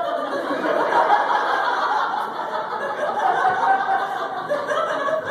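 Audience laughing loudly, one woman's laugh standing out, stopping after about five seconds.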